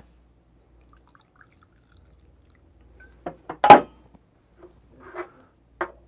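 Brewed coffee poured quietly from a glass server into a small tasting glass, then a loud glass knock a little over halfway through as the server is set down on the wooden table, followed by a few light clinks of small glasses.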